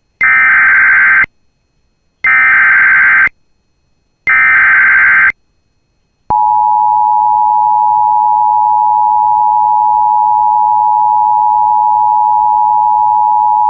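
Emergency Alert System tones announcing a new severe thunderstorm warning: three one-second bursts of SAME header data, about a second apart, then, about six seconds in, the steady two-tone EAS attention signal (853 and 960 Hz sounding together).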